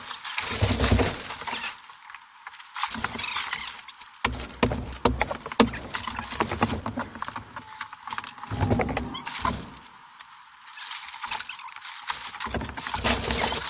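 Plastic vapour-barrier sheeting crackling and rustling as it is pulled off the insulation and handled, with many irregular sharp clicks and knocks.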